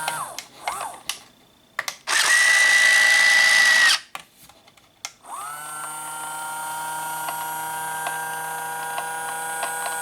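Small electric motors of a 1/12-scale Hobby Engine RC track loader whining. There are a few short spurts first, then a louder run of about two seconds with a hiss about two seconds in, then a steady whine from about five seconds on.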